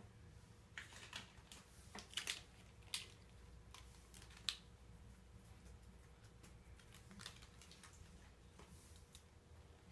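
Faint, scattered scratches, rustles and light clicks of a pen writing on paper and small objects being handled on a tabletop.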